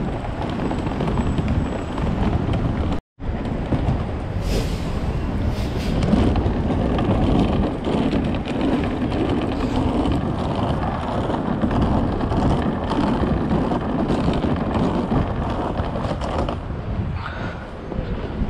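Street ambience heard on foot: steady traffic passing on the road, with wind buffeting the microphone. The sound drops out for an instant about three seconds in.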